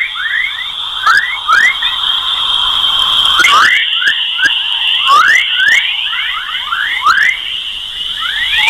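Sonified space recording: a steady high electronic tone overlaid with a string of short rising chirps, roughly two a second. The tone shifts slightly in pitch about three and a half seconds in.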